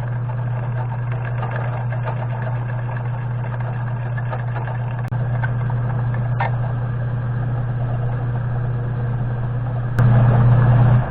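A small machine tool's electric motor running steadily with a low hum and mechanical whirr. The sound jumps about five seconds in and again near the end, where it becomes louder.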